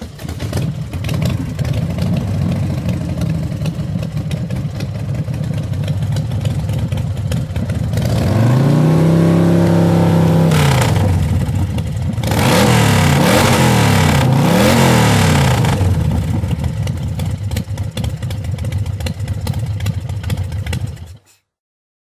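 Motorcycle engine idling. About eight seconds in it is revved once, climbing and falling back over two or three seconds, and around thirteen seconds it is blipped twice in quick succession before settling back to idle. The sound cuts off suddenly near the end.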